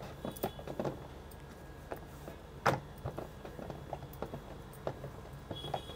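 Wooden rolling pin rolling out wheat dough on a stainless steel plate: quiet rolling with scattered light clicks and knocks, the sharpest one about two and a half seconds in.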